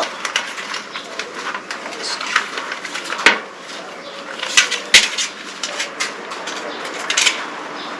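Bicycle tyre being worked off its rim by hand and with tyre levers: the rubber tyre rubs and scrapes against the rim, with a run of sharp clicks and snaps, the loudest about three and five seconds in.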